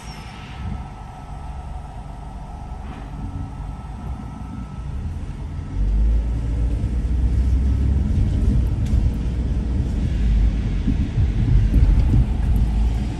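Low rumble of a moving vehicle, with road and engine noise, getting louder about six seconds in.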